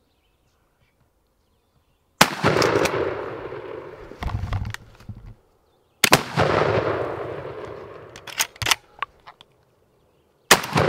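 Three shotgun blasts about four seconds apart, each followed by a long rolling echo that dies away over a couple of seconds, with a few sharp clicks and knocks between them.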